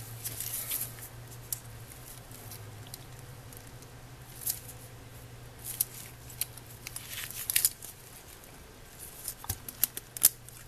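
Scattered small plastic clicks and scrapes as a model locomotive's plastic floor piece is pressed and pried loose from the chassis by hand, over a faint steady low hum.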